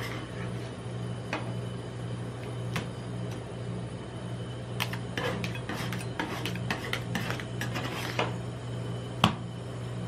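Two metal spatulas chopping, scraping and tapping on the frozen steel plate of a rolled-ice-cream pan as ice cream mix is worked and spread flat. The taps come irregularly, busiest in the middle, with one sharp knock near the end, over a steady low hum.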